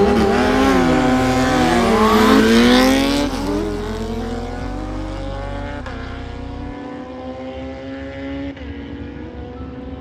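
Race engines at full throttle on a drag strip: loud for the first three seconds, their pitch sweeping down and back up. Then one engine fades as it pulls away, its pitch climbing steadily with short drops at gear changes about six and eight and a half seconds in.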